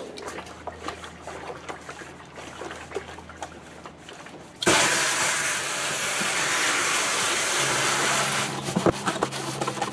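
Faint scrubbing inside a plastic 5-gallon poultry waterer. About halfway through, a garden hose starts abruptly and water pours into the jug in a loud, steady hiss.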